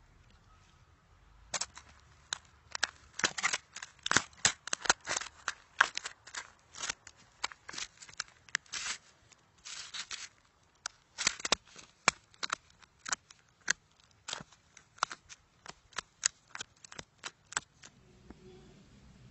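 Crunchy slime being squeezed and pressed, giving a run of irregular crackling clicks and pops that starts about a second and a half in and stops shortly before the end.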